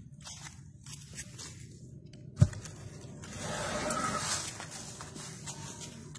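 Footsteps crunching and rustling through dry fallen leaves on a forest floor, with one sharp thump about two and a half seconds in and a louder rustling swell just after it.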